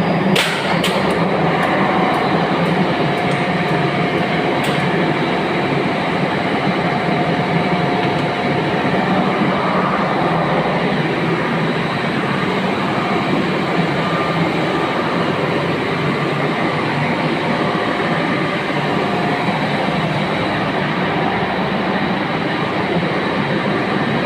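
Generator set running steadily under power after being started, with several sharp clicks in the first five seconds or so.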